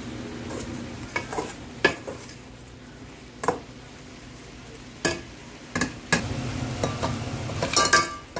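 Metal ladle stirring shrimp in a stainless steel pot, sizzling, with sharp clinks and scrapes of the ladle against the pot. Near the end comes a louder clatter as cooked crabs are tipped in from a metal bowl.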